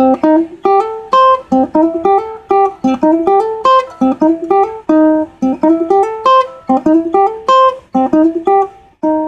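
Acoustic ukulele played fingerstyle: a single-note blues riff plucked with alternating index and middle fingers, repeating phrase after phrase, with short upward slides into some of the notes.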